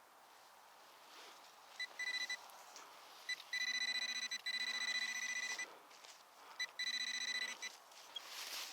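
Metal detector sounding its electronic target signal: two short high beeps, then a long warbling high tone with a low tone beneath it, and a shorter one near the end.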